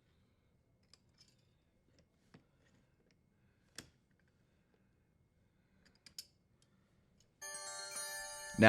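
Faint, scattered light clicks and ticks, about half a dozen spread over several seconds, with near silence between them. Near the end a quiet steady sound of several held tones comes in.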